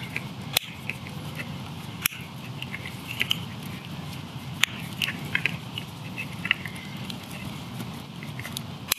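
Side cutters snipping and crunching through a soft red plastic terminal cover on a wire: a run of small irregular crunches and ticks, with a few sharper snaps about half a second in, about two seconds in, and near the end.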